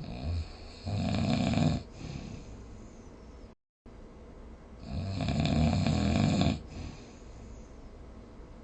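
A person snoring: a short snort, then a loud snore lasting about a second, and after a pause a second, longer snore of about two seconds. A brief dead-silent gap falls between the two snores.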